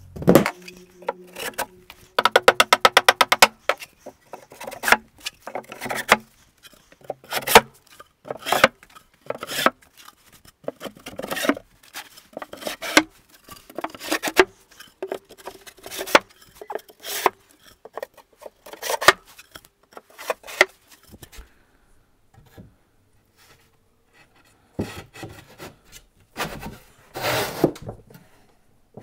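Thin plywood shelves being slid into the slots of a plywood storage rack: wood scraping and rubbing with frequent knocks, and a fast rattle about two seconds in. A single mallet knock on the stack of shelves comes right at the start.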